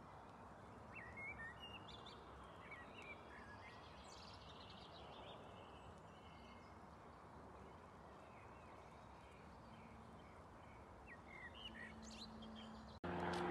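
Faint outdoor ambience: steady low background noise with a few brief, high small-bird chirps, once about a second in, again around three seconds, and near the end. Just before the end it breaks off abruptly into a much louder steady drone.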